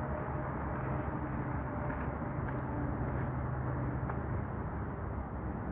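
Steady rush of distant highway traffic, with trucks going by on the road.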